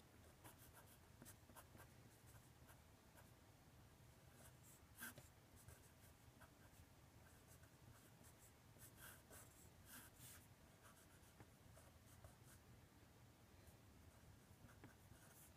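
Faint scratching of a Sharpie marker writing on paper, in short irregular strokes, over a faint low steady hum.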